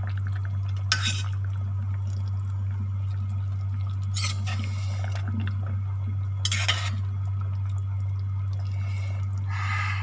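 Metal spoon stirring and ladling soup in a stainless steel pot, with brief scrapes and splashes about a second in, around four seconds, around six and a half seconds and near the end. A steady low hum runs underneath.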